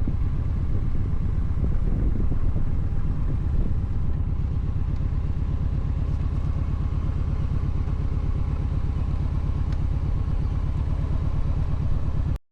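Kawasaki Voyager 1700's V-twin engine running steadily with an even low pulsing beat. The sound cuts off abruptly near the end.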